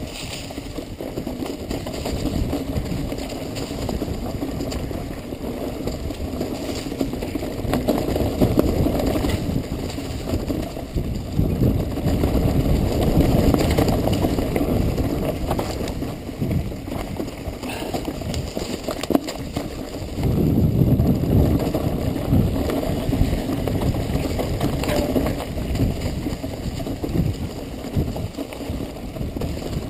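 A mountain bike ridden fast down a rocky dirt trail: a continuous rumble of tyres and frame over the rough ground, with scattered rattles and knocks and wind noise on the camera microphone. The rumble swells and eases as the terrain changes.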